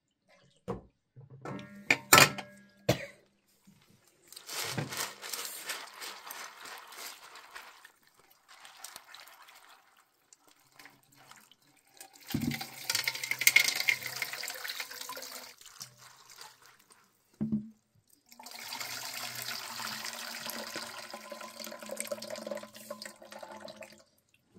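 Water sloshing and pouring in metal bowls as food is washed by hand: raw chicken pieces, and a bowl of raisins tipped and drained over a wide basin. A few sharp knocks about two seconds in.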